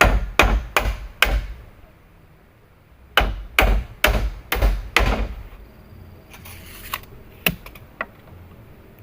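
A tool striking wood in quick repeated blows, two runs of four or five strikes, then a few lighter knocks near the end.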